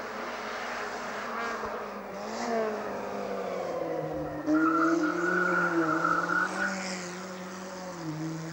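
Small race car's engine revving up and down as it climbs. From about four and a half seconds in to about seven seconds, a loud steady tire squeal comes in as the car corners hard.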